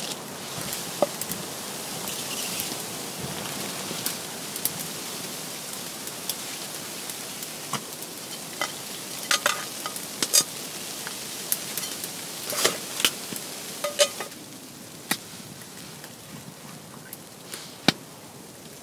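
Food sizzling in a frying pan, with sharp clicks and scrapes of a cooking utensil against the pan; the sizzle drops about 14 seconds in.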